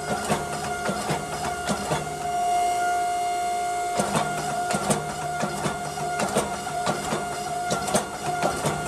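Forge running steadily with a constant hum from its burner and blower while a wrought iron billet soaks at welding heat.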